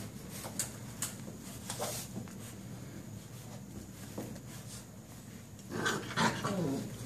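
Hound-mix puppies playing, with scattered soft knocks and scuffles, then a louder burst of puppy noise with a short falling whine near the end.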